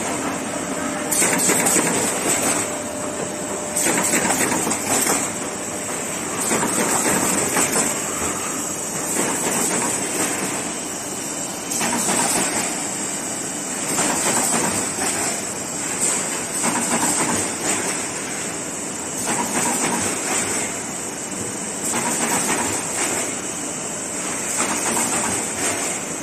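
Automatic corrugated-box partition assembly machine running: a continuous mechanical clatter that swells and eases every second or two.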